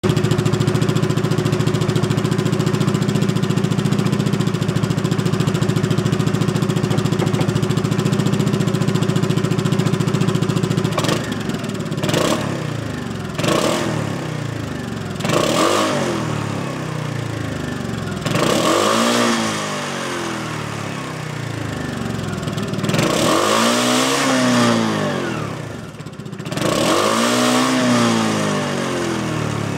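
SYM GTS 300i scooter's single-cylinder four-stroke engine running through an aftermarket Giannelli full exhaust system. It idles steadily for about eleven seconds, then is revved in a series of throttle blips that each rise and fall, the later ones held longer.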